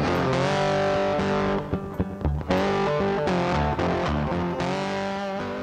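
Background music led by guitar, playing held notes over a bass line, beginning to fade out near the end.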